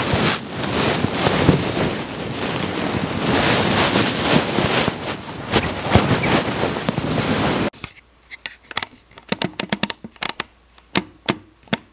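Loud rustling of a nylon puffer jacket and shuffling as a person gets up from a chair and moves away. About two-thirds of the way in it cuts off abruptly, leaving a scattering of sharp clicks.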